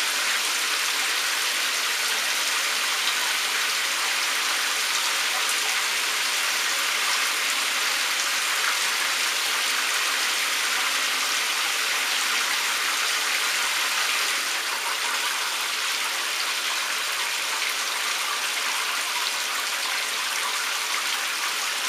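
A shower running: a steady hiss of water spray that eases slightly about two-thirds of the way through.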